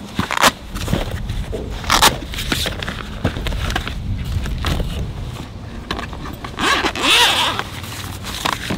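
Handling noises: scattered sharp clicks and scraping, with a longer rustle about seven seconds in, over a steady low rumble.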